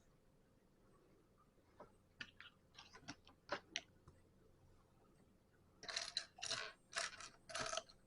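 Plastic Lego bricks clicking and rattling as loose pieces are handled and sorted through: a few scattered light clicks, then a denser run of rattling about six seconds in.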